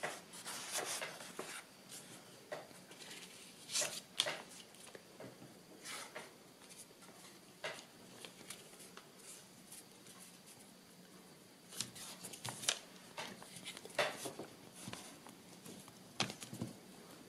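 Craft paper rustling as it is handled, and fingers rubbing a small piece of cardboard flat onto the glued paper, in scattered brief rustles and scrapes.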